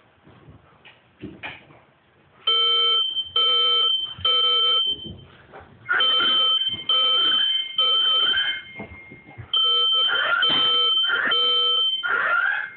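Fire alarm horn sounding in repeated groups of three pulses, starting about two and a half seconds in. This is the general alarm, activated because the pre-alarm was not acknowledged in the positive alarm sequence.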